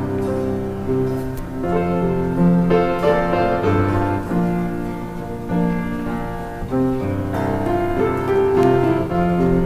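Slow instrumental offertory music on a keyboard instrument, sounding like piano, playing held chords that change about once a second.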